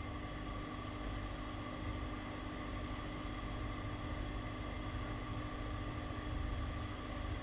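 Steady mechanical hum of cooling fans with several constant tones and no change throughout; the flashing LED strobe makes no sound of its own.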